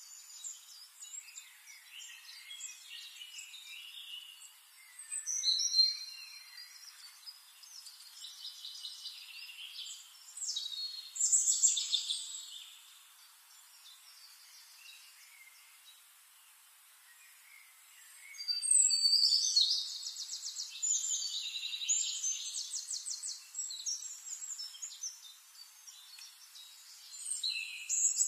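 Birds chirping and singing in quick, high-pitched phrases, louder in bouts around a quarter of the way in, near halfway and again toward the end, with a quieter lull between.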